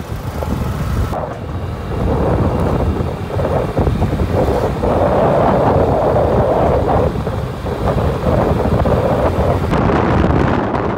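Wind buffeting the microphone of a camera riding on a moving scooter, over road and engine noise. The noise changes abruptly about a second in and again near the end.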